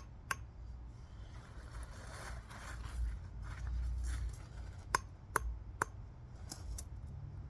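Broken plastic remote-control pieces clacking and scraping on rocks. There is a sharp click just after the start, a scraping rustle from about two to four seconds in, then five quick sharp clicks in the last few seconds.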